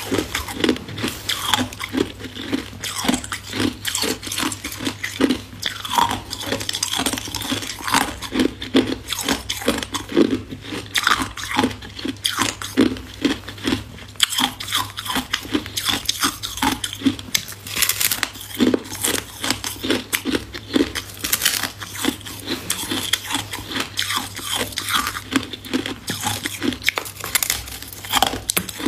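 A block of ice being bitten and chewed, a quick, dense run of crisp crunches and cracks several times a second.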